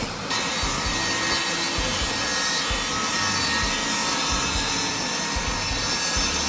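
Table saw running and cutting through an end-grain hardwood chopping board, a steady sawing noise.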